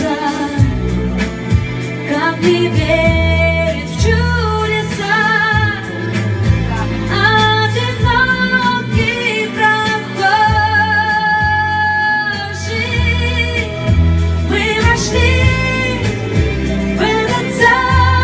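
Pop song: a female voice holding long, wavering sung notes without clear words over a band accompaniment with a steady beat.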